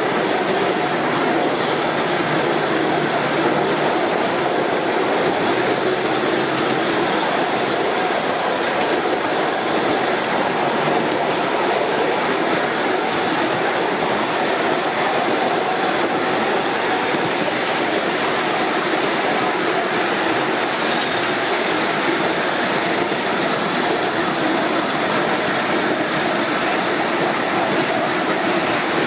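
A miniature steam railway train running on a raised track, heard from on board behind the locomotive: a steady rumble and rattle of the wheels on the small rails. A short higher-pitched burst comes a little after two-thirds of the way through.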